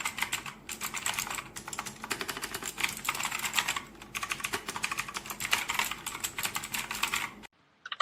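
Fast typing on a NUBWO DURINN X800 mechanical keyboard: rapid key clicks in bursts with short pauses. The sound cuts off suddenly near the end.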